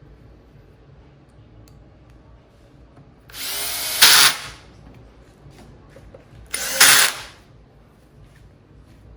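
Cordless drill driving T25 Torx screws back into an electric scooter's stem: two runs of about a second each, each getting louder at the end as the screw seats.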